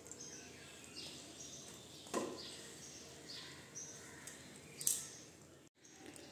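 Burger bun halves toasting in melted butter in a frying pan, the butter sizzling faintly, with two light knocks about two and five seconds in. Birds chirp in the background in short falling calls.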